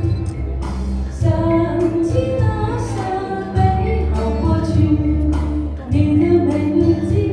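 A woman singing a slow pop ballad over a backing track with a steady, pulsing bass beat.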